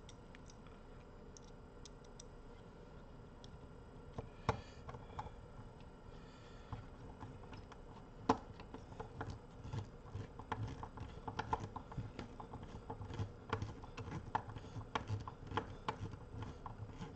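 Screwdriver clicking and tapping against screws and the metal chassis of a Pioneer car amplifier, in short irregular clicks: scattered at first, the sharpest one about eight seconds in, then quick and busy from about ten seconds on. A faint steady hum lies underneath.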